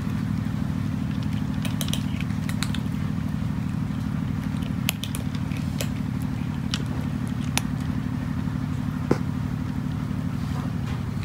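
A cat crunching dry kibble, with sharp crunches in a cluster about two seconds in and single ones every second or so after, over a steady low mechanical drone like a running engine.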